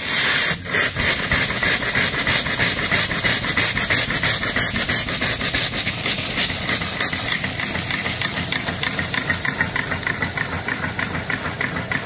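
Steam hissing loudly from the open cylinder drain cocks of a small single-cylinder reproduction mill steam engine as it starts, blowing condensed water out of the cylinder, with the engine's fast, even exhaust beat running through the hiss. The hiss comes on suddenly just as it begins.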